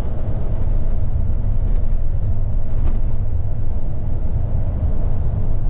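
Cabin noise of a Higer coach at highway speed: a steady, loud low rumble of engine and tyres on the road.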